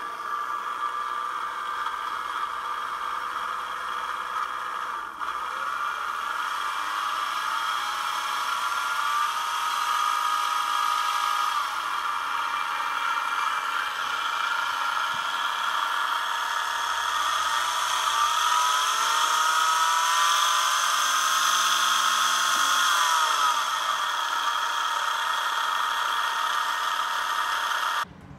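A 48-volt, 750-watt electric motor on a homemade friction-drive e-bike, running its skateboard-wheel roller against the bicycle tyre with a steady whine. The pitch falls and rises several times as the throttle is varied.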